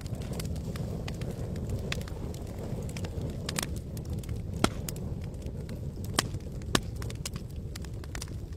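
Campfire crackling, with scattered sharp pops of burning wood (three louder ones about halfway through and near the end) over a steady low rumble.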